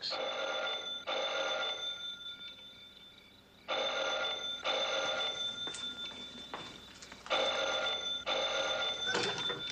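A telephone bell ringing three times, each ring about two seconds long with a pause between them: an incoming call.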